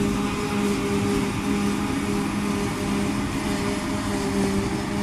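Claas Jaguar 850 self-propelled forage harvester at work chopping heavy grass, a steady machine hum with a constant drone throughout, mixed with wind noise on the microphone.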